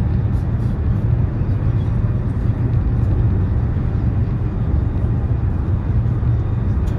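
Steady low rumble of a high-speed train running at speed, heard inside the passenger carriage, with a few faint light ticks.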